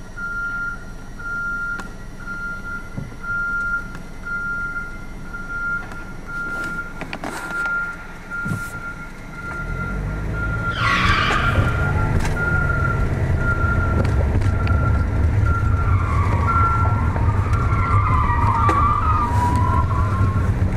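A truck's reversing alarm beeping steadily at an even pace over an idling car engine. About halfway through, the engine rumble grows louder as the car moves off, with a few short squeals.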